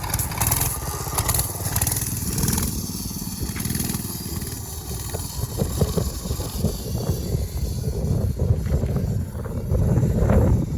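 Pocket bike's small engine running while the bike is being ridden, with a steady low rumble.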